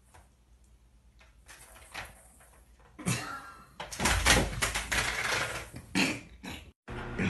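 A cat leaping into a large potted plant and tumbling down with it. A sudden thump comes about three seconds in, then a second or two of loud rustling and bumping, and another thump about a second later.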